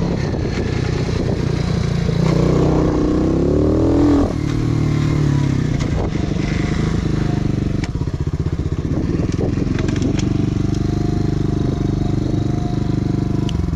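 125 cc four-stroke pit bike engine, heard from the saddle, revving up with a rising pitch about two seconds in and dropping back sharply at about four seconds. It then runs at low revs with an even pulse as the bike rolls slowly.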